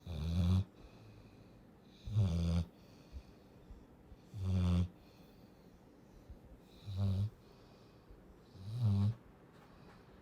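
Cane Corso puppy snoring in its sleep: five short snores, about one every two seconds.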